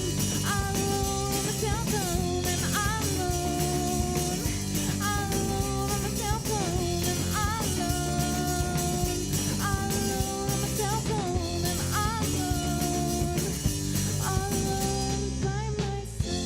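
Rock song with guitar and drums under a lead vocal singing a repeated phrase of long held notes, each about a second or two long. The highest sounds fade out near the end.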